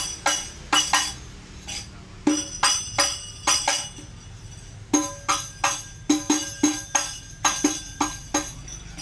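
Hadroh (rebana) frame drum struck by hand in short rhythmic patterns as a sound test, each stroke ringing with a low drum tone and a bright slap. There is a brief pause about halfway through before the next run of strokes.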